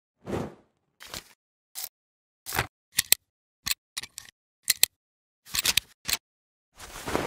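A rapid string of about fifteen short transition sound effects with dead silence between them: sharp clicks and brief noisy swishes, some in quick pairs.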